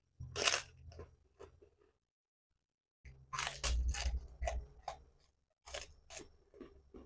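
Close-miked mouth sounds of a person eating a mouthful of rice and side dishes by hand: wet chewing clicks and smacks with some crunch. They come in bursts, with a silent pause about two seconds in.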